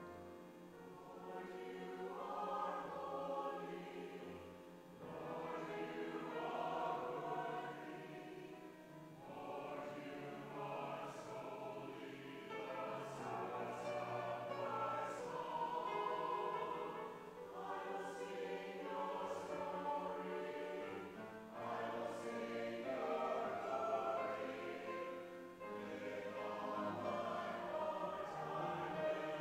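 Mixed adult church choir of men and women singing an anthem, phrase after phrase with short breaks between.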